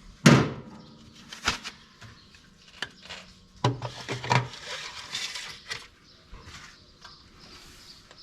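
Irregular metallic clicks and knocks of hydraulic lifters and a magnet tool being worked out of a small block Chevy's lifter bores. There is a loud clank that rings briefly about a quarter second in, then scattered lighter knocks and a short cluster of them a little before the middle.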